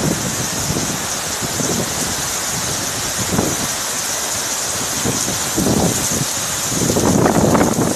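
Heavy tropical-cyclone rain hissing steadily on the street, with strong gusts of wind buffeting the microphone in irregular surges that are strongest near the end.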